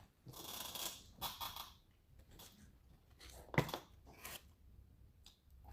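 Scattered crisp rustling and crackling with a sharp click about three and a half seconds in: noises of eating and handling fried chicken and its wrapping.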